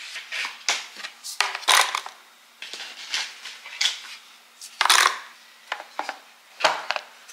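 Nespresso coffee capsules being dropped and packed into a storage container: irregular light clicks and clatters with short pauses between them.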